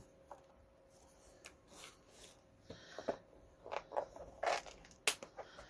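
Small paper and card pieces being handled and shuffled, with light rustles and taps. Sparse at first, busier in the second half, with one sharper click near the end.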